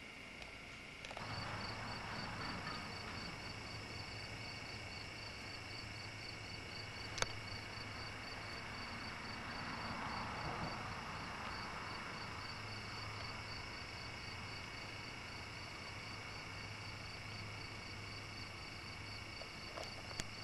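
Crickets chirping in a steady, even rhythm, several chirps a second, starting about a second in. One sharp click about seven seconds in.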